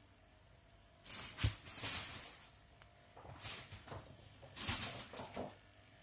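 Three bursts of rustling and scuffling, with a soft thump about a second and a half in, from a kitten squirming on a lap and batting at a feather toy.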